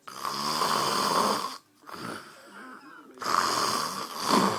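A man snoring loudly in his sleep: two long snores, each about a second and a half, with a quieter breath out between them.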